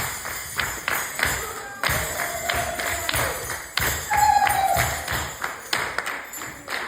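Background music in an instrumental stretch without singing, with irregular light tapping and clicking throughout.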